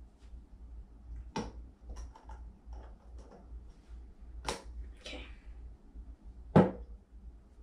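Glass jars and small pieces handled on a tabletop: a series of sharp clicks and taps, with a louder, duller knock about six and a half seconds in.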